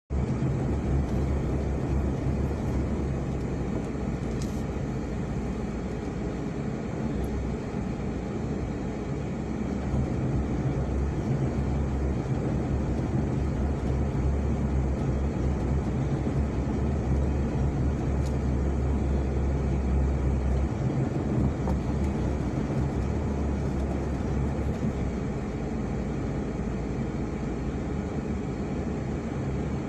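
Steady low rumble of a car's engine and cabin, heard from inside the car as it sits in slow, queued traffic, growing a little louder for several seconds in the middle.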